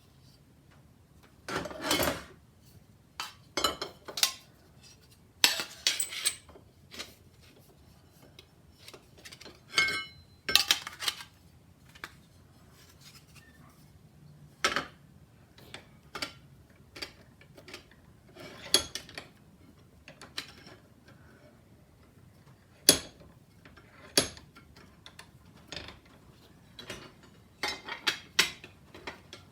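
Irregular metallic clinks, knocks and clatter of hand tools and thin sheet metal being handled and worked, about twenty separate strikes at uneven intervals, one or two ringing briefly.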